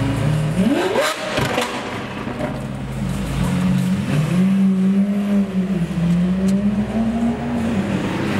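Car engine running steadily, revved sharply once about a second in, the pitch shooting up and dropping back, then running on with the pitch drifting gently up and down.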